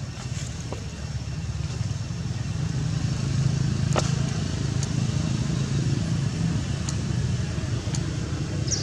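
A motor vehicle engine running steadily, a low rumble that grows louder over the first three seconds and then holds. A few faint clicks and a short high chirp near the end.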